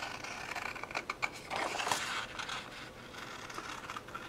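Paper being cut with a blade along printed lines: faint scratchy rasps with light ticks as the paper is handled.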